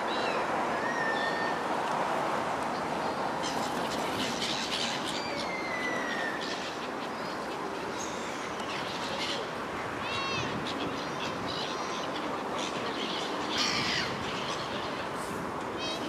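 Waterbirds, gulls among them, give scattered squawking and whistled calls over a steady rushing background. The loudest call comes about thirteen and a half seconds in.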